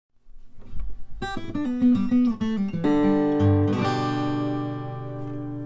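Intro music on solo acoustic guitar: a quick run of plucked notes, ending on a chord that rings out and slowly fades.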